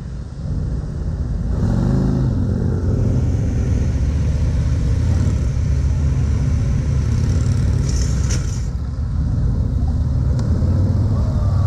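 Several police touring motorcycles running at low speed through a cone course, their engines going steadily with small throttle changes. There is a brief hiss about eight seconds in.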